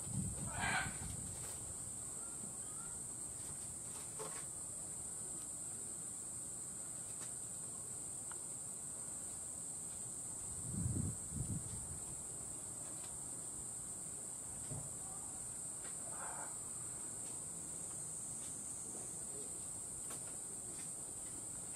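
Steady high-pitched drone of insects, unbroken throughout, with a few soft low thuds near the start and about eleven seconds in.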